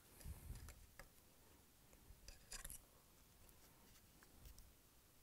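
Near silence with faint clicks and rustles of a plastic wiring harness and plug being handled against a fan shroud panel, a few about half a second in and again a little past the middle.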